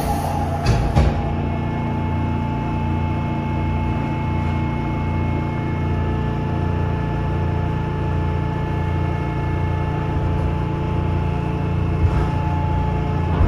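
Sliding doors of a Seoul Subway Line 3 car closing with a couple of knocks about a second in, then the car's steady mechanical hum with a low throb pulsing about once a second.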